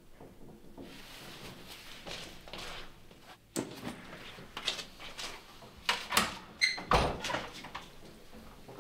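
A wooden front door being opened and handled: a sharp latch click, then clatters, knocks and a brief squeak as someone comes in, and a heavy thud about seven seconds in.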